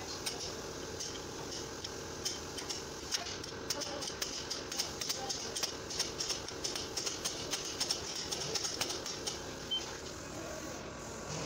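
Light, irregular metal clicks and taps as a new rear wheel bearing is fitted and tapped into a Dodge Ram 1500's rear axle housing. The clicks come thickest in the middle, over a steady background hum.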